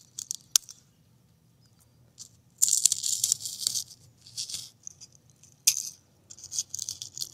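Carbonized mango slice, now brittle charcoal, being snapped and crumbled between fingers: dry, crisp crackling in several short bursts, the longest about two and a half seconds in.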